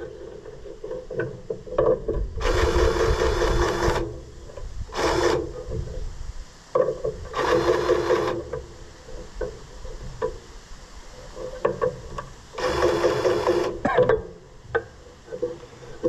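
Grease gun being pumped into grease fittings on an Oliver 520 baler: several strokes about a second long, a few seconds apart, with small clicks and knocks between. The fittings seem not to be taking the grease.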